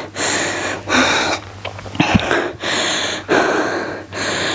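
A woman panting hard, out of breath after a set of jump squats. About six loud, rushing breaths in and out come in quick succession.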